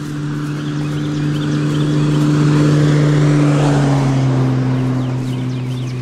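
A road vehicle drives past: its engine hum and tyre noise grow louder to a peak about three seconds in, the hum drops in pitch as it goes by, then it fades.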